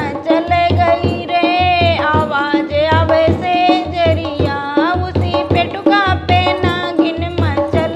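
A woman singing a banna geet, a North Indian folk wedding song for the groom, in a sliding, ornamented melody over a steady hand-drum beat.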